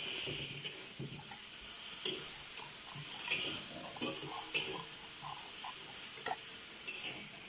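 A metal spoon stirring a thin, wet spice paste in a bowl, scraping the sides with a few light clicks against the bowl.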